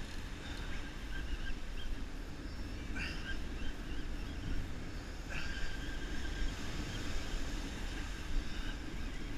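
Steady wind rumble on the microphone mixed with the wash of breaking surf, with a few brief high squeaks about three and five seconds in.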